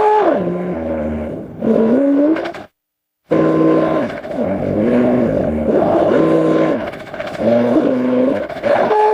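Layered dinosaur-style creature roar and growl sound effects: loud pitched calls that slide down and back up in pitch, broken by a brief silence about three seconds in.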